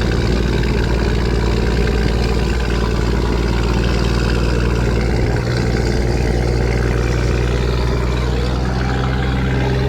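Scania 4-series truck's diesel engine running steadily on the move with a deep, even note; about halfway through the note changes and then holds steady again.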